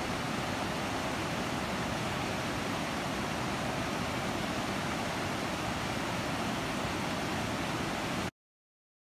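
Steady rush of river water flowing across a flooded road ford and spilling over its rocky edge. It cuts off abruptly near the end.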